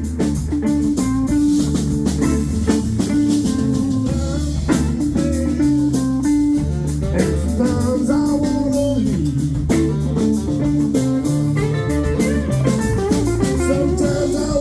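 Live blues-rock band playing an instrumental passage: guitar over bass and drum kit with a steady beat.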